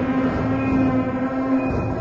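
Background music made of held notes, with a strong low note that stops near the end.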